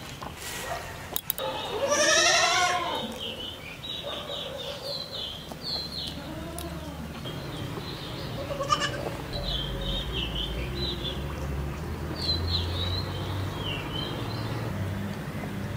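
An animal bleats once, loud and wavering, about two seconds in. Small birds chirp on and off throughout, and a low rumble comes in later.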